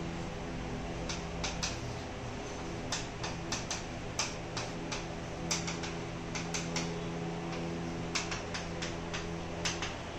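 Chalk tapping and clicking against a chalkboard while writing, in irregular clusters of sharp taps, over a steady low hum.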